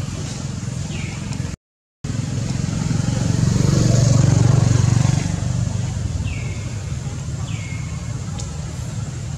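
A steady low motor rumble that swells to its loudest about four seconds in and fades again, like a motor vehicle passing, with three or four short high chirps over it. The sound cuts out completely for a moment about a second and a half in.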